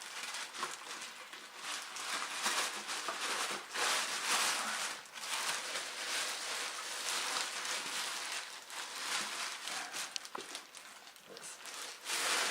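Packing material rustling and crinkling in irregular surges as a cylinder head is unpacked from its box, with a few light knocks.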